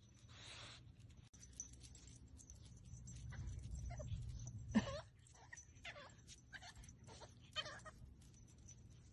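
French bulldog puppy giving a string of short, faint whines and yips. The loudest is a rising call about five seconds in.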